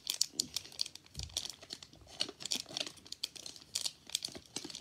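Paper crinkling and rustling in irregular crackles as a folded instruction sheet is handled and unfolded.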